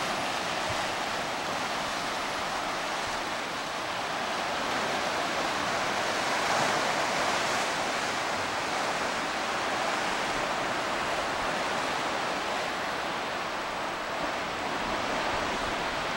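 Sea surf washing against a rocky shore: a steady hiss of moving water that swells a little about six seconds in.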